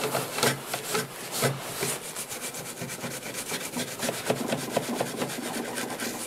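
Toothbrush scrubbing the metal rear I/O ports of a computer motherboard in quick back-and-forth strokes. The strokes come slower at first and speed up after about two seconds.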